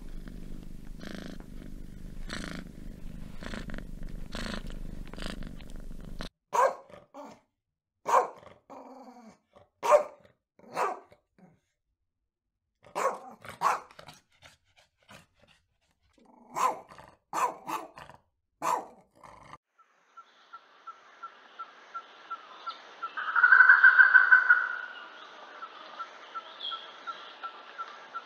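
A domestic cat purring in a low, steady rumble for about six seconds. Then a Siberian husky gives a string of short barks, one to two seconds apart. Near the end, over a faint steady tone, a louder sound lasting about two seconds.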